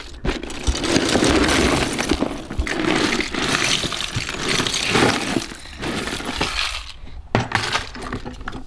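A big load of small plastic Mega Construx bricks and figures pouring out of a tipped storage bin onto a rug: a dense rattling clatter of plastic on plastic that comes in several surges.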